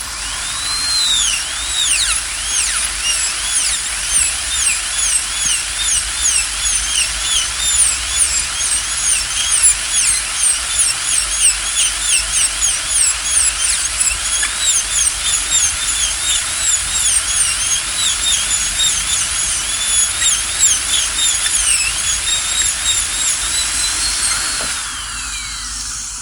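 High-pitched dentist's drill whining, its pitch sweeping up and down several times a second over a steady hiss, as the drill speeds up and slows down again and again.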